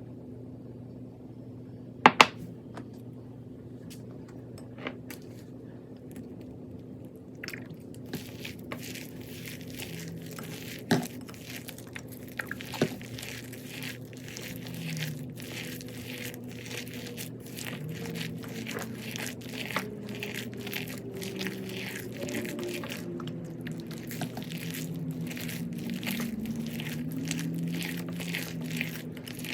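Crunchy slime packed with beads being squeezed and kneaded by hand: crackling and popping that is sparse at first and thickens into a continuous crackle, with a few sharp, louder snaps about two and eleven seconds in.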